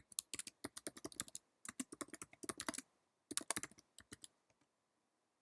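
Typing on a computer keyboard: quick key clicks in three runs with short pauses between, typing a search query, then stopping.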